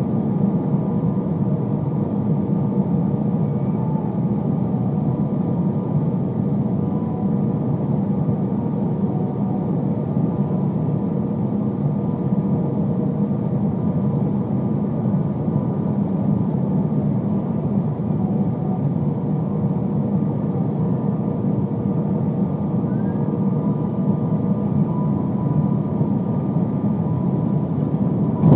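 Steady cabin noise of an Airbus A320 on final approach: an even rush of engine and airflow noise with faint steady whines over it. Right at the end comes one sharp thump, as the main wheels touch down on the runway.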